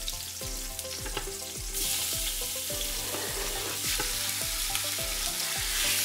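Raw chicken chunks going into hot oil in an Instant Pot's stainless steel inner pot on sauté mode: a sizzle that swells suddenly about two seconds in as the meat hits the oil. Near the end a wooden spatula stirs the pieces.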